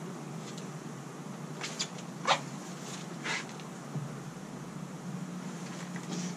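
Wooden beehive boxes knocking as a heavy, frame-filled hive body is lifted, carried and set down. There are a few sharp knocks, the loudest about two seconds in, over a steady low hum.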